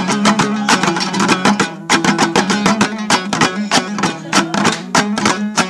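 Instrumental break in an Afghan folk song: plucked string instruments strummed in a fast, steady, driving rhythm over a held low note.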